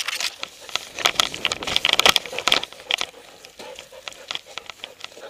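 Rustling and crackling clicks from an action camera strapped to a Doberman, rubbing and knocking as the dog moves. The clicks come thick and fast for about three seconds, then thin out.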